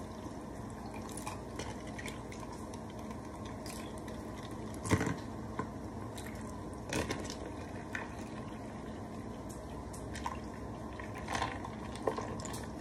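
Coffee poured in a steady stream from a glass carafe into a tall cup over ice, with a few sharp clicks and cracks from the ice, the loudest about five seconds in.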